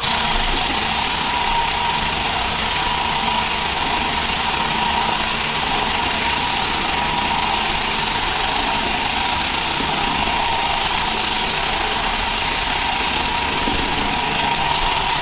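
Roomba robot vacuum switching on abruptly and running steadily: a constant motor whirr with a steady high whine.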